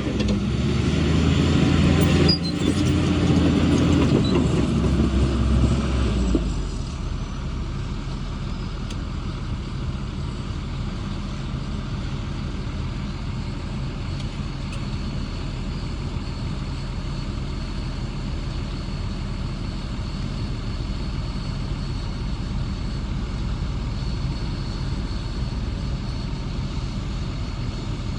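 Heavy diesel engine of earthmoving machinery running loudly, with a sharp knock about two seconds in. About six seconds in it drops to a steady, quieter idle.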